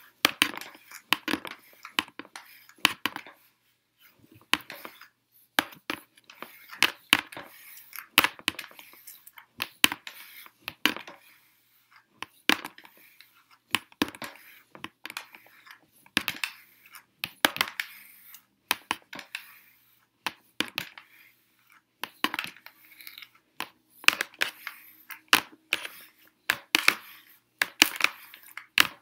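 Hair being combed with a plastic vent comb and pressed with a flat iron: a quick, irregular run of brushing strokes through the hair and light plastic clicks, a few every second.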